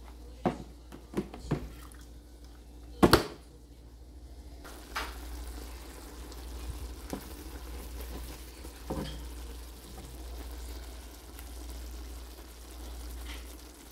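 A few sharp clicks and knocks in the first three seconds, the loudest just after three seconds. Then chicken drumsticks in coconut-milk sauce simmering in a wok, a steady soft bubbling hiss with small pops.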